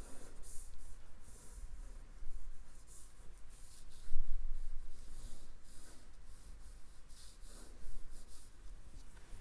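Drawing strokes scratching across paper, short irregular strokes coming one after another. There is a low bump about four seconds in.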